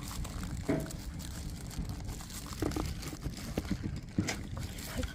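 Wood fire burning under a cooking pot: a steady low rumble with scattered small crackles and knocks.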